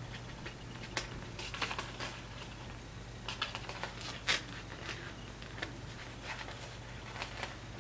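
A paper sticker sheet crinkling and flexing while fingernails pick at a sticker's edge to peel it off its backing: scattered small clicks and rustles, the sharpest about a second in and around four seconds in, over a faint steady hum.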